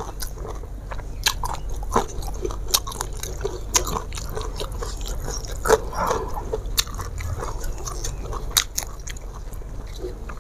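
Close-miked chewing and mouth sounds of a person eating with her hands, with many irregular sharp clicks, over a steady low hum.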